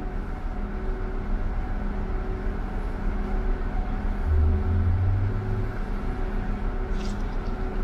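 City bus running, heard from inside: a steady low rumble with a hum that pulses about twice a second, the deep rumble swelling louder about halfway through.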